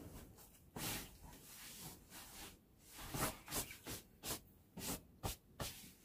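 Quilted comforter rustling as it is pulled and smoothed over a bed, then a string of quicker rustles and soft bumps as someone climbs onto it.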